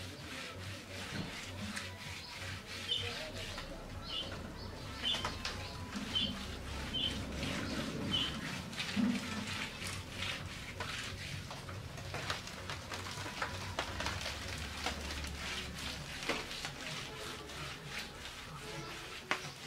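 Stinging catfish being cut on a boti, a fixed upright curved blade: repeated sharp clicks and scrapes as the fish is drawn across the edge. A bird chirps about once a second for several seconds in the first half, and once more near the end.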